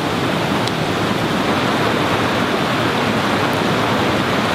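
Fast-flowing creek running over rocks in white-water riffles, a loud, steady rushing noise.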